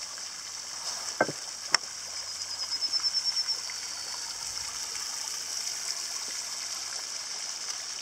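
Steady high hiss of a fast-running electric radio-controlled model boat and the water it throws up. Two sharp clicks come about a second and a half in, and a brief fluttering run of quick pulses follows a little later.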